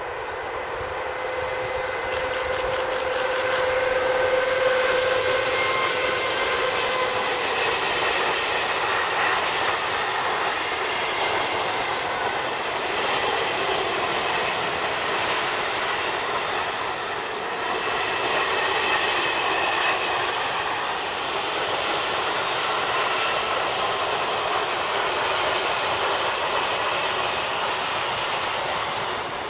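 Electric-hauled freight train of covered hopper wagons passing close by. There is a whining tone as the locomotive goes by in the first few seconds, then a steady rumble and clatter of wagon wheels on the rails that lasts until the train has passed.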